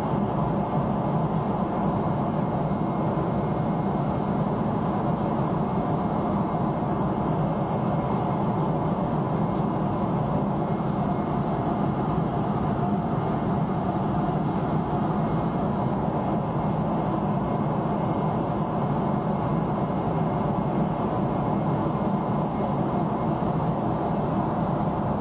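Steady cabin roar of a Boeing 777 in flight, heard from a window seat beside the jet engine: engine and airflow noise with a faint steady whine.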